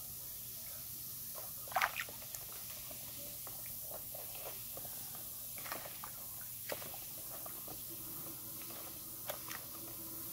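Bath bombs fizzing in a basin of water: a faint steady hiss with scattered sharp little crackles, the loudest pair about two seconds in.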